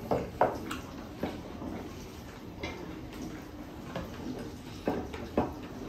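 Close-up eating sounds of a person eating by hand: chewing and mouth smacks, with sharp clicks and small knocks scattered through. Two of them are louder, one just after the start and one about five seconds in.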